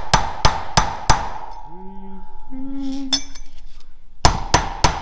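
Hammer blows on metal as a part is driven into a small two-stroke engine's crankcase assembly during a rebuild: four quick strikes about three a second, a pause, then four more near the end, each leaving a brief metallic ring.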